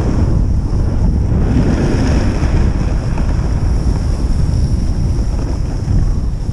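Wind buffeting the microphone of a camera moving downhill, a steady rumbling rush, with the hiss of a board sliding over packed snow.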